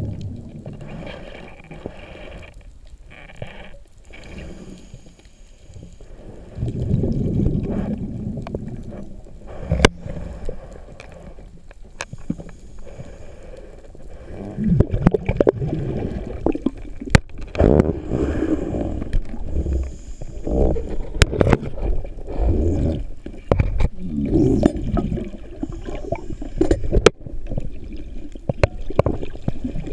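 Underwater water noise picked up through a camera housing: a low rumble of moving water that swells and fades in surges, with scattered sharp clicks and knocks.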